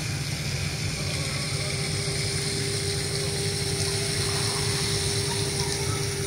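Steady low engine rumble with a hiss, from a ship under way. A steady mid-pitched hum sets in about a second in.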